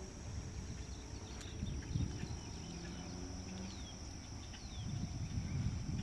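Wind gusting over the phone's microphone with a low rumble that swells and fades, over a steady high-pitched whine and a few faint, quick falling bird chirps.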